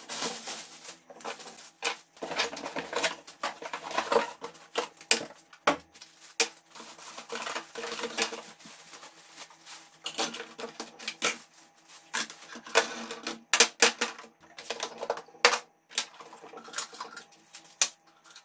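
Clear plastic packaging bag crinkling and rustling as it is handled, in dense irregular crackles, over a faint steady hum.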